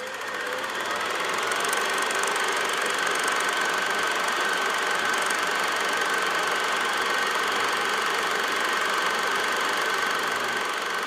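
Film projector running: a steady mechanical whirr and rapid clatter that fades in over the first second or two and then holds level.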